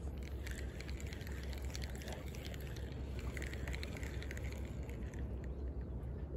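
Wind rumbling on a handheld microphone by the sea, with faint scattered clicks and rustles of handling.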